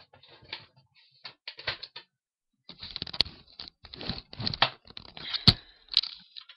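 Irregular rustling, clicking and knocking of things being handled and moved about close to the computer's microphone, getting busier after a few seconds, with one sharp knock about five and a half seconds in.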